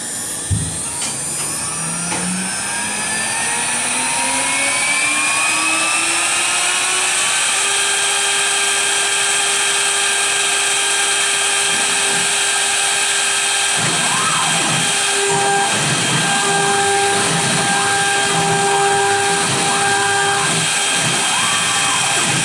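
A CNC router spindle starts after a short thump and spins up, its whine rising for several seconds and then holding at a steady high pitch. About two-thirds of the way through, the 90° V-bit begins engraving the maple board, adding a rough, uneven cutting sound over the whine.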